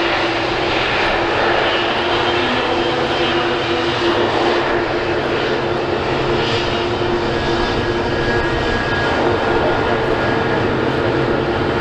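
Boeing 777-9's twin GE9X turbofans running at low taxi power as the airliner rolls slowly past, a steady jet whine over an even rush with a constant low hum.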